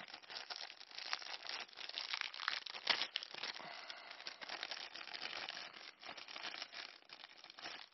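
Clear plastic bag crinkling and rustling as hands handle it, an irregular run of crackles that thins out near the end.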